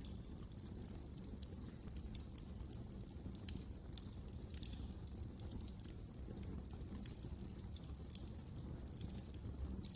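Wood fire crackling: irregular small pops and snaps, several a second, over a steady low noise from the burning fire.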